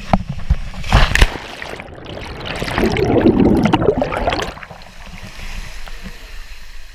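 Water rushing and splashing as someone slides down a natural waterfall rock slide into the pool. A few sharp knocks come in the first second, the splashing is loudest between about two and four and a half seconds in, then it settles to a steady, quieter rush of falling water.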